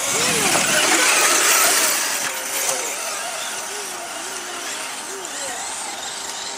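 Radio-controlled model monster truck driving on a dirt track close by, its motor revving up and down in short bursts over a rush of tyres throwing dirt. It is loudest in the first two seconds, then quieter as the truck moves off.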